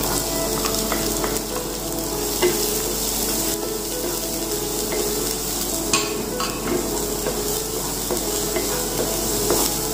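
Chopped onion and garlic sizzling in a hot nonstick kadhai, stirred with a wooden spatula that scrapes and taps the pan a few times.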